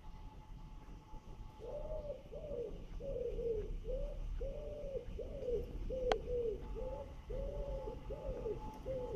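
Pigeon cooing: a long run of short coos that rise and fall, about two a second, starting a couple of seconds in, over a low steady rumble. A single sharp click about six seconds in.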